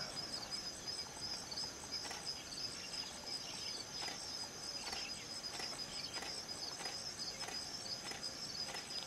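Insects trilling steadily in the grass, a high, rapidly pulsing chirr with about four pulses a second, with faint short calls now and then underneath.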